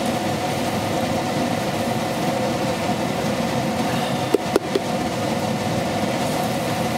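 Steady mechanical hum, like a small motor or fan running, with two short knocks about four and a half seconds in.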